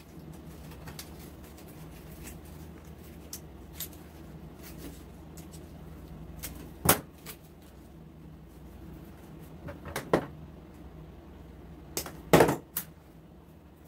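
Scattered knocks and clicks from handling craft materials and artificial flowers on a tabletop, with the loudest knocks about 7 and 10 seconds in and two close together near the end, over a faint steady hum.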